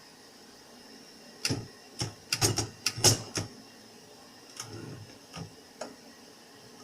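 Olivetti Studio 44 manual typewriter, its keys struck by hand in an irregular run of sharp clacks, with no paper in the machine.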